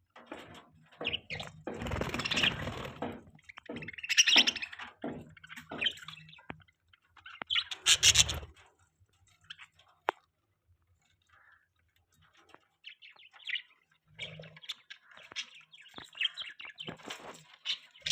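Budgerigars chirping and chattering in irregular short calls, with louder harsh bursts about two seconds in and again around eight seconds, then a quieter pause before the chirping picks up again near the end.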